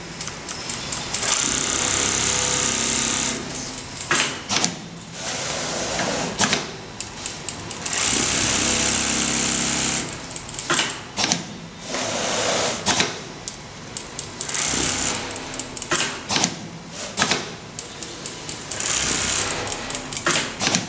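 Automatic template sewing machine stitching in runs of a few seconds: a rapid, steady needle chatter that stops and restarts several times, with sharp clicks in the gaps between seams.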